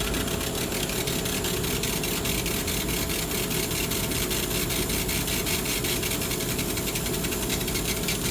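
Electric power tool running steadily with a fast, even pulsing, working a dense wooden knife handle.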